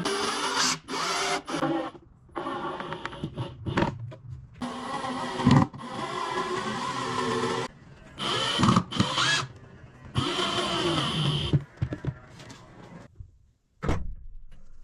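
Power tools working wood, heard in a string of short bursts with abrupt cuts between them; a steady motor whine runs for a second or so twice in the second half.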